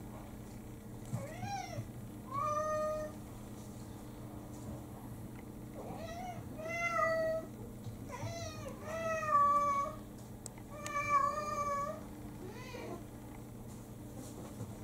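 Domestic cats meowing for food, about eight meows in clusters, some short and rising, others long and drawn out, over a steady low electrical hum.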